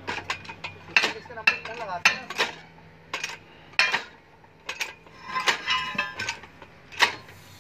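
Metallic clinks and clanks, roughly one a second, some ringing briefly. They come from a hand-lever hydraulic pump being worked to drive a bearing puller on a jaw crusher shaft.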